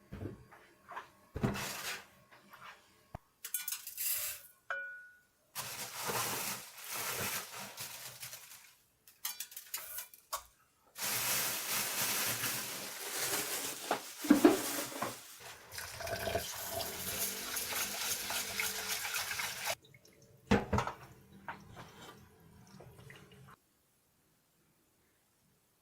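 Kitchen tap running into a sink in several spurts, with dishes and cutlery clinking and knocking; the longest run of water starts about eleven seconds in and lasts some nine seconds.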